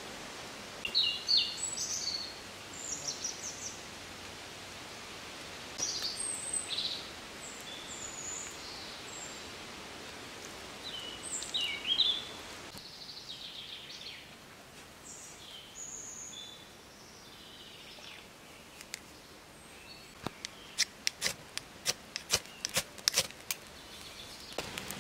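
Small birds chirping in short calls over a steady rushing background that drops away about halfway through. Near the end comes a quick series of sharp clicks and snaps, as loud as the chirps.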